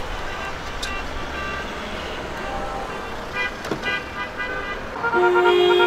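Cars driving past in a slow convoy, sounding their horns: a few short toots over the traffic noise, then a long steady horn blast starting about five seconds in, louder than the rest.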